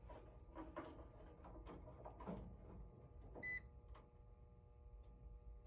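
Faint clicks and handling noise, then one short, high electronic beep about three and a half seconds in from a multimeter testing a blower motor's run capacitor.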